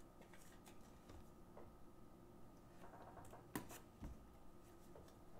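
Near silence, with a few faint clicks and taps of trading cards being handled and set down on a table; the clearest comes about three and a half seconds in.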